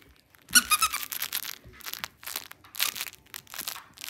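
A puppy's plush dragon squeaky toy squeaks in a quick run of high-pitched squeaks about half a second in as he bites it. Scattered crinkling and rustling follow.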